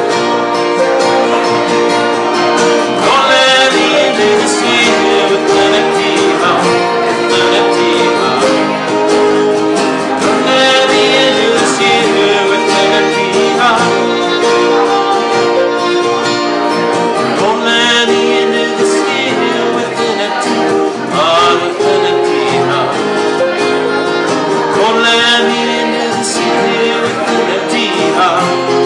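Folk band playing live: strummed acoustic guitars, banjo and fiddle, with a man singing lead.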